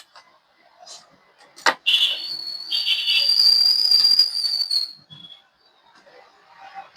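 A sharp click, then a steady high whistling tone with a hiss that lasts about three seconds and cuts off.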